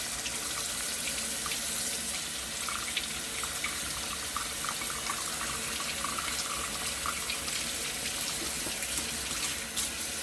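Kitchen tap running steadily into a sink, with small splashes and clinks.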